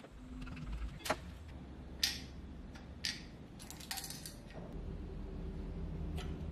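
Hard plastic case of a 20 V cordless-tool battery pack being unscrewed and pulled apart by hand. It gives sharp clicks about one, two and three seconds in, a brief scraping rattle as the shell comes off, and one more click near the end.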